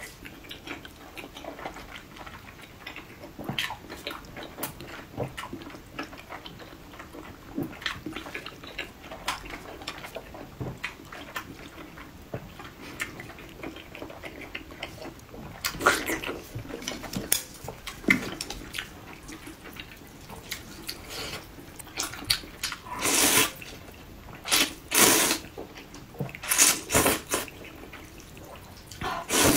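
Close-miked eating sounds: soft, wet chewing and small lip and mouth clicks on a soft sausage, with several loud wet slurps in the second half.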